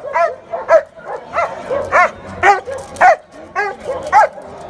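German shepherd barking repeatedly, about two barks a second.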